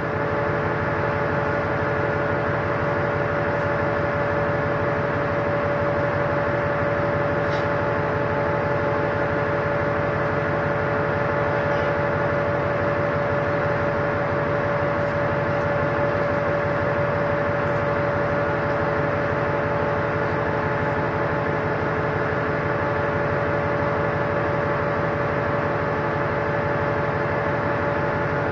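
Steady drone of a ship's machinery at anchor: a constant hum with several held tones over an even mechanical noise, unchanging throughout.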